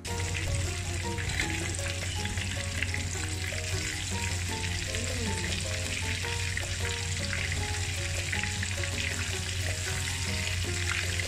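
Chicken pieces coated in crushed potato chips frying in hot oil in a pan: a steady sizzle with dense crackling.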